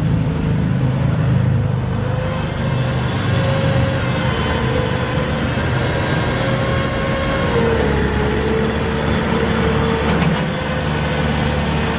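Bobcat T250 skid steer's diesel engine running steadily, with a steady whine over it that dips slightly about eight seconds in.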